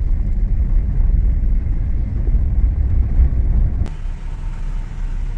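Low, steady road and engine rumble inside a moving car. About four seconds in it cuts abruptly to a lighter rumble with more hiss.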